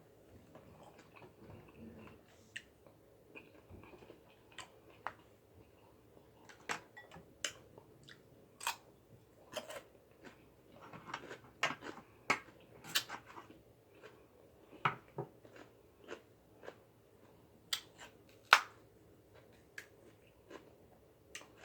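Close-up eating sounds of a person eating a seafood boil: chewing and mouth smacks with irregular sharp clicks and cracks.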